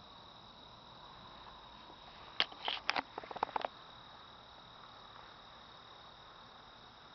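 Camera handling noise: a quick cluster of clicks and knocks about two and a half seconds in, lasting roughly a second, as the hand-held camera is jolted. Under it, a steady high-pitched cricket trill in the night field.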